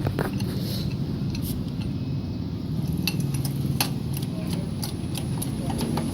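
A machine's motor running with a steady low hum, with scattered light metallic clicks and clinks over it.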